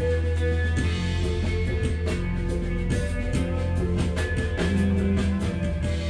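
A live rock band playing: electric guitars and bass holding sustained notes over a steady drum-kit beat with cymbal hits.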